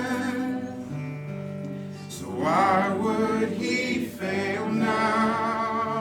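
Voices singing a gospel worship song over acoustic guitar, with one long wavering held note about two and a half seconds in.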